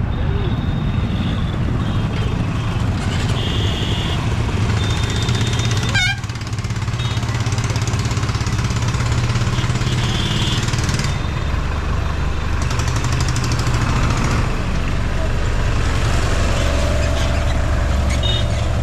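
Mixed road traffic crossing a level crossing: motorcycle, bus and truck engines running in a steady hum, with people's voices and several short high-pitched beeps. A sharp click about six seconds in.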